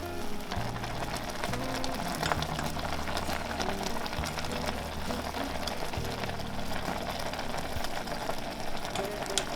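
Background music with steady low notes over a dense crackling hiss of water boiling in a pot for ramen.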